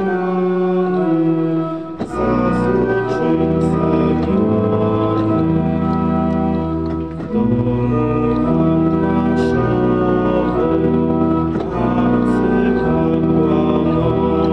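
Organ playing a slow hymn tune in sustained chords that change about once a second; deep bass notes join about two seconds in.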